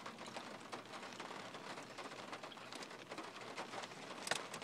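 Light rain pattering steadily on the roof of a car, heard from inside the cabin, with one sharper click near the end.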